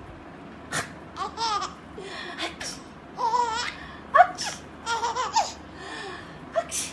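Baby laughing in short bursts of giggles and squeals that rise and fall in pitch, the loudest about four seconds in.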